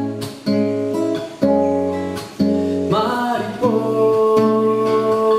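Nylon-string classical guitar playing plucked chords, a new chord struck about once a second. About three seconds in, a man's singing voice comes in over the guitar and holds a long note.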